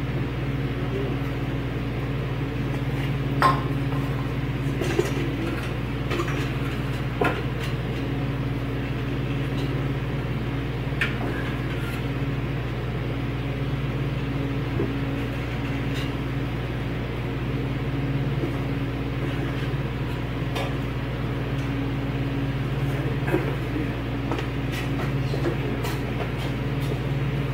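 Scattered light clicks and knocks, a few seconds apart, from hands working at a pickup truck's raised hood while rubber hood stoppers are being fitted, over a steady low hum.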